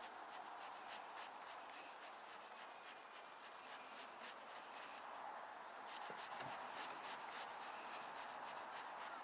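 Faint scratchy rubbing and light ticks over a steady hiss: handling noise from a fishing rod and reel being slowly worked.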